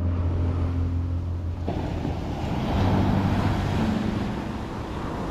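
Small waves washing up onto a sandy beach, mixed with background music of sustained low notes that change every second or two.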